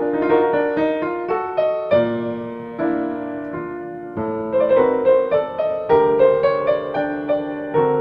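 Background music: solo piano playing a classical piece, a steady run of struck notes and chords.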